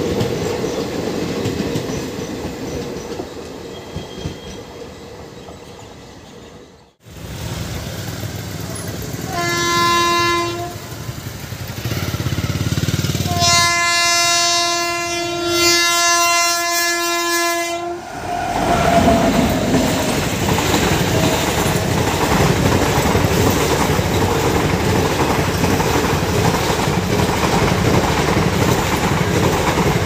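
Passenger train coaches rumbling past and fading away. Then a locomotive approaches and sounds its shrill horn, a short blast followed by a long one of about four seconds, and the train clatters past loudly over the rail joints.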